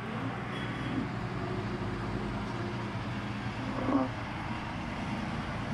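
Spirit box scanning through radio stations: a steady hiss of static with a short voice-like fragment about four seconds in.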